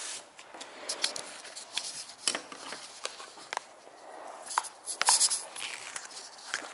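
Irregular small clicks, taps and rubbing of objects being handled at a workbench, busiest about five seconds in.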